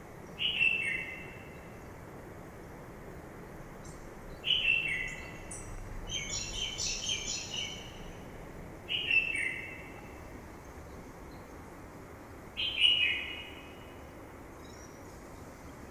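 A songbird repeats a short call of two falling notes about every four seconds, and another bird gives a quick jumble of higher notes about six seconds in. Under the calls runs the steady rush of a mountain river.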